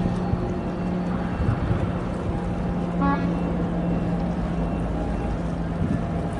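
A boat's engine running steadily as a low hum, with wind and water noise. A short, high tonal beep sounds about three seconds in.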